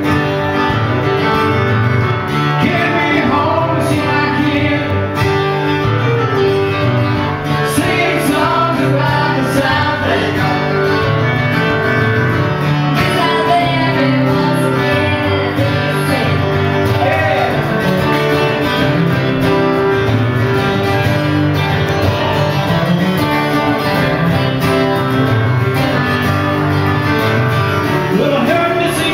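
Live acoustic band playing a country-style song: strummed acoustic guitar with singing.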